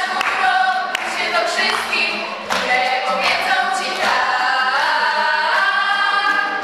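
A choir of girls singing a scouting song together, holding long notes.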